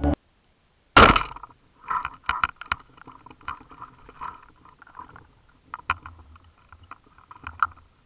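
Underwater speargun shot: one sharp, loud crack about a second in, followed by scattered clicks and knocks of the shaft and line in the water.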